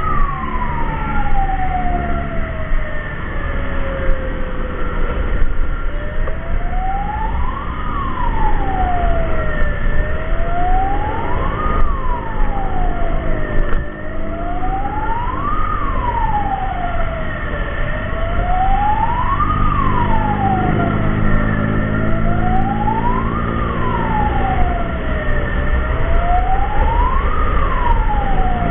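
Electronic emergency siren wailing. At the start it makes one long slow fall in pitch, then it rises and falls about every four seconds. Vehicle engine and road rumble run beneath, with an engine growing louder past the middle.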